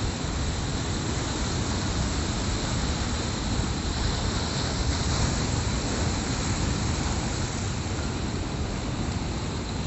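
Heavy sea surf breaking and washing in foam over a rocky shore: a steady rushing noise with no pauses.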